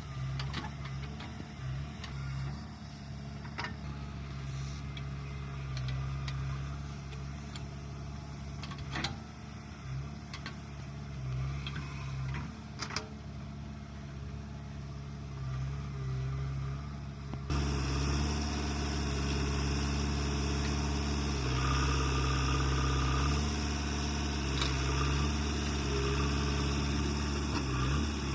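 JCB 3DX backhoe loader's diesel engine running steadily, with a few sharp knocks in the first half. About seventeen seconds in the sound suddenly gets louder and fuller and stays that way.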